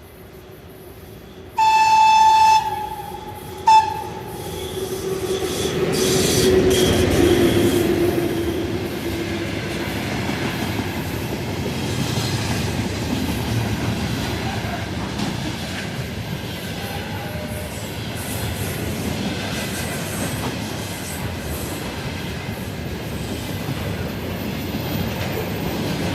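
VL10 electric locomotive sounding its horn twice, a blast of about a second then a short one, then rolling past with a steady rumble of wheels on the rails and the wagons behind it.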